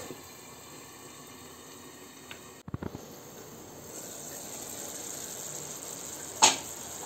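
Kohlrabi and potato curry simmering in a pan, a steady soft hiss and sizzle. Near the middle the sound briefly cuts out, and a single sharp knock comes about six and a half seconds in.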